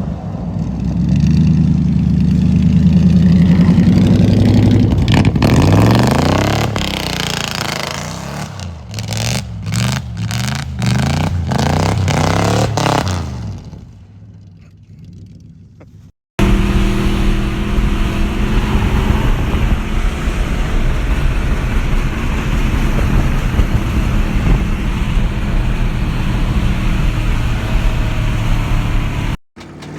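Lincoln Town Car V8 engine held at high revs, then revved up and down with several brief cut-outs, bouncing off the rev limiter, before winding down. After a cut, the engine runs again at steady high revs for about thirteen seconds.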